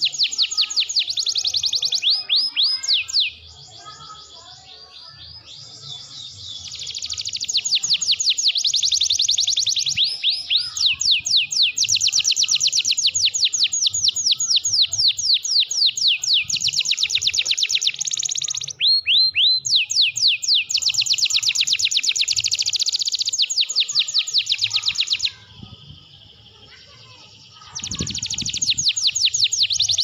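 Domestic canary singing long, rapid trills of falling notes repeated several times a second. The song drops to softer twittering twice, a few seconds in and again near the end.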